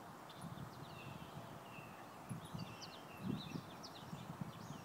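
Several birds chirping and calling together, faint, with short notes, some dropping in pitch. A few soft low thumps come in between, the loudest a little past three seconds in.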